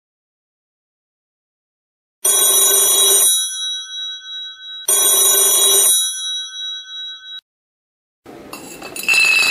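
Alarm clock bell ringing in two bursts of about a second each, the second followed by a faint ring-on for over a second. Near the end comes a short clatter.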